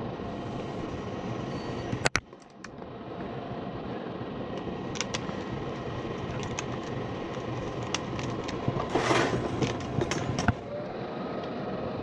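Two-stage gas furnace running with its burner compartment open: a steady rush from the draft inducer fan and burners. A sharp click comes about two seconds in, and a short burst of rustling with a few clicks comes around nine seconds.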